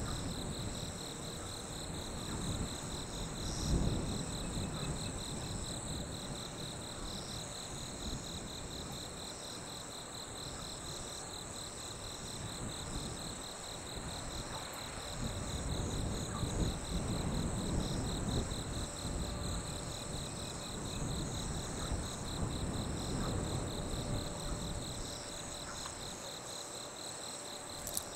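Night chorus of crickets: a steady, rapidly pulsing high trill. Underneath is a low rumble that swells and eases, strongest about four seconds in and again around the middle.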